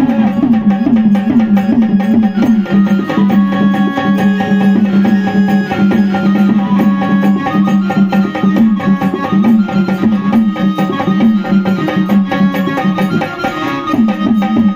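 Instrumental passage of Marathi gondhal folk music: hand-drum strokes that bend in pitch keep a quick rhythm over a steady drone and a held melody line, with no singing.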